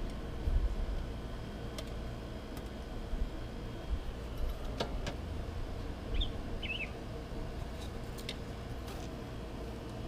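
A few scattered faint clicks and knocks of hand tools on the engine over a low rumble, with a small bird chirping twice a little past the middle.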